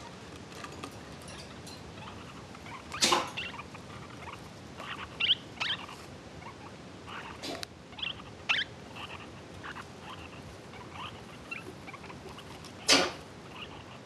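Lineolated parakeet chicks and their parent giving short, scattered squeaky chirps in the nest box. The loudest chirps come about three seconds in and near the end.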